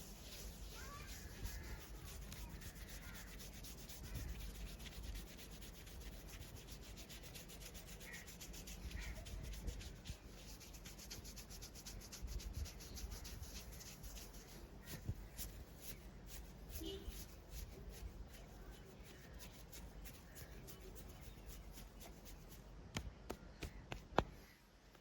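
Hands rubbing and massaging skin: a faint, scratchy rubbing with many tiny crackles. A few sharper clicks come near the end, one of them a single sharp click about a second before it ends.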